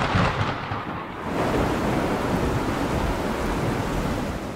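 Heavy rain hissing with a low rumble of thunder, dipping briefly about a second in, then swelling again and holding steady.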